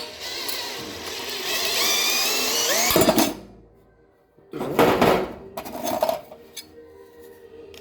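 Drill driving a sheet-metal cutting shear adapter: the motor whines and rises in pitch for about three seconds, then stops suddenly, followed a second later by another short burst and a brief blip. The cutter is stuck and not advancing along the steel roofing sheet.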